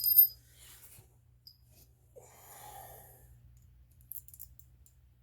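Two sharp metallic clinks with a brief high ring, from a tool on a seized motorcycle derby cover screw. About two seconds later comes a heavy breath out, then a few light clicks near the end.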